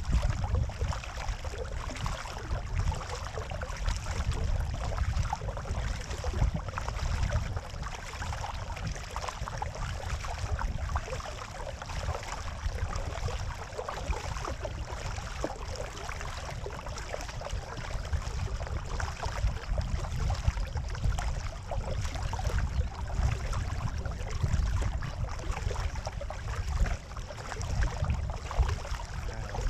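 Water rushing and splashing along a kayak's hull as it is paddled, with paddle strokes dipping in, over a steady low rumble of wind on the microphone.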